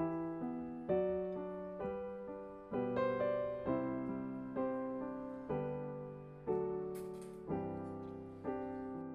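Gentle piano music: chords and notes struck about once a second, each fading away before the next.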